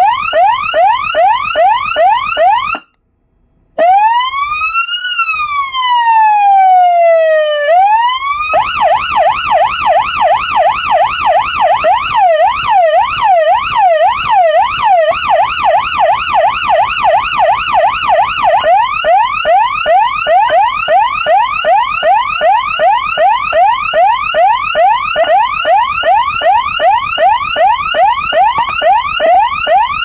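Senken CJB-15 electronic police siren amplifier sounding through its siren speaker and switched through several tones. It starts with fast repeating yelp sweeps, cuts out for about a second near three seconds in, and gives one slow wail that rises and falls. From about eight seconds in it runs fast up-and-down sweeps, changing about 19 seconds in to quicker sweeps that rise and drop back.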